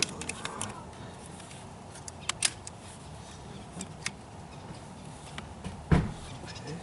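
Scattered small clicks and ticks of hands working on wiring and plastic connectors. There is one louder thump about six seconds in.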